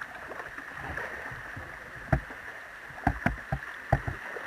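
Steady rushing hiss of water pouring over a low river weir, heard close to the surface. A few sharp splashes or knocks stand out, one about two seconds in and several more between three and four seconds.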